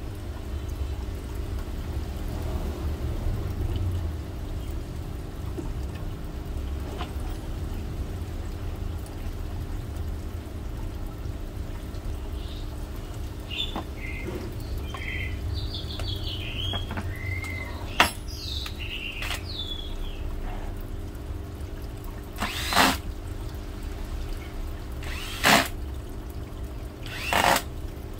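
Handheld electric drill triggered in four short bursts near the end, over a steady low hum; a few faint high squeaks and a single sharp click come before.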